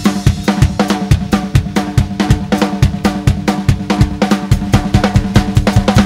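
Live rock band's drum kit playing a fast, steady beat on bass drum, snare and cymbals as a song opens, with a low note held steadily underneath.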